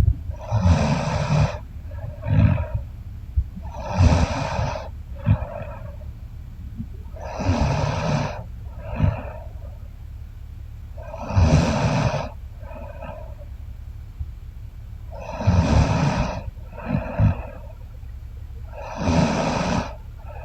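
A woman snoring in her sleep: six loud snores at an even pace of about one every four seconds, each followed about a second later by a shorter, fainter snore.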